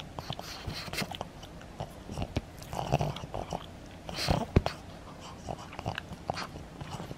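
Pug chewing and gnawing on a plush toy, biting at the fabric and its cotton stuffing in irregular bites, with a louder burst a little past halfway.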